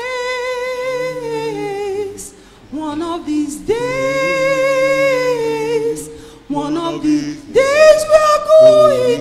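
Church choir of mostly women's voices singing a hymn in three long held phrases, with only faint backing if any.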